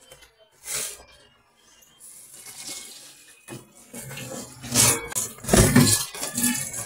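Handling of a plastic food container with a short clatter about a second in, then tap water running into a stainless steel sink and splashing in and over the container as it is rinsed, growing louder and surging irregularly in the second half.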